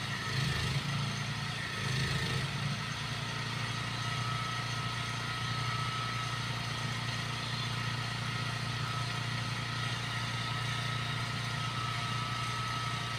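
Portable generator's engine running steadily at a constant speed, a low hum with a thin steady whine above it.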